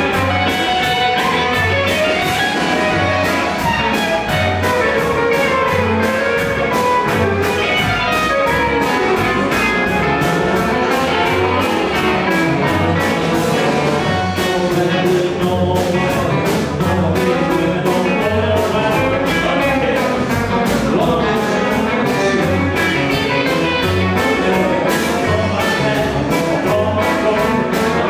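A live band playing: two electric guitars over an upright double bass and drums, with a steady beat.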